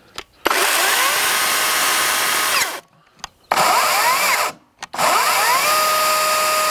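CAT DG631 60-volt brushless cordless chainsaw revved with no load three times: the electric motor spins up with a rising whine to a steady high pitch over the hiss of the free-running chain. It then winds down, the runs lasting about two seconds, one second, and two seconds.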